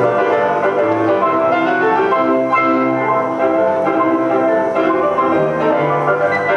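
Instrumental music of sustained, overlapping notes that change every second or so, with no steady beat.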